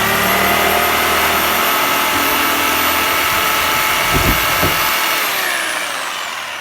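Crown 800-watt electric jigsaw with a wood blade running at a steady high speed while cutting off a piece of wood, with a few low knocks about four seconds in. Near the end it is switched off and its whine falls in pitch as the motor winds down.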